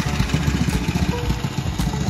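Tillotson 212 single-cylinder four-stroke engine on a minibike running steadily as the bike is ridden away, a rapid low firing beat.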